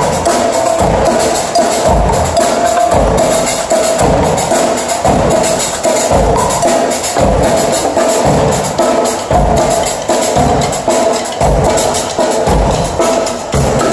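Live percussion group playing drums and cymbals in a fast, dense groove, with deep drum beats repeating underneath.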